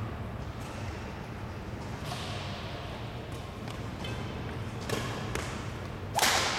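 Badminton rally: rackets striking the shuttlecock, a few sharp cracks about two, five and six seconds in, the last and loudest near the end, each ringing on in the echoing hall.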